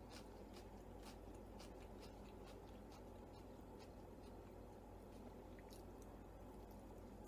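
Faint chewing of a soft naan wrap: scattered small wet mouth clicks over a low steady room hum, with another bite taken near the end.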